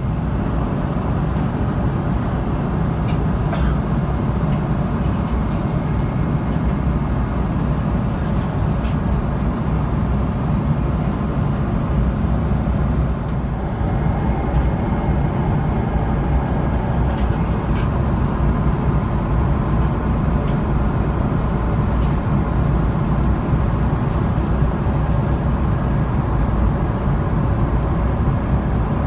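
Steady cabin noise of a Boeing 777-300ER with GE90-115B engines in flight: a loud, even rumble of engines and airflow, with a few faint light clicks now and then.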